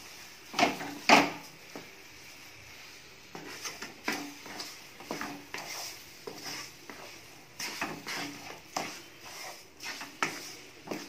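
Wooden spatula stirring mashed banana and sugar in a kadai, scraping and knocking against the pan in irregular strokes; the two loudest knocks come about a second in.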